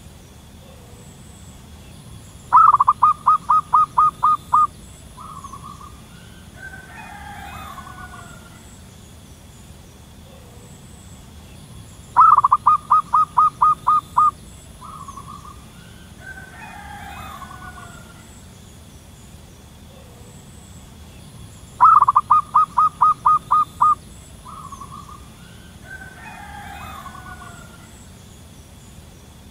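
Wild zebra dove singing: three phrases about ten seconds apart, each a quick stuttering run of about nine short cooing notes and a single short note to finish. A fainter call from another bird follows each phrase.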